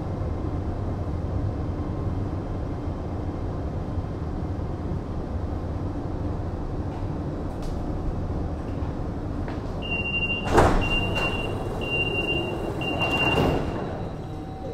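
Metro train at a station: a steady low rumble, then about ten seconds in the door warning tone beeps four times as the sliding doors close, with a loud thump as the beeping starts and a rush of door noise near the end.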